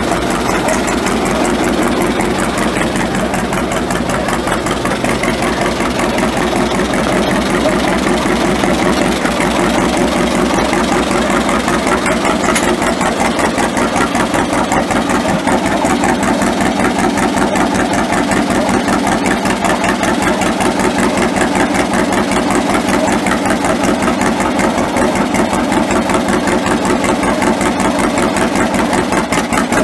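1951 John Deere G's two-cylinder gas engine idling, a steady, even beat of exhaust pulses.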